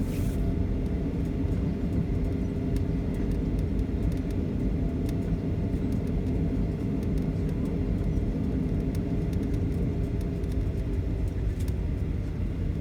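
Boeing 737 cabin noise: a steady low rumble with a constant engine hum, as the airliner taxis on the ground after landing.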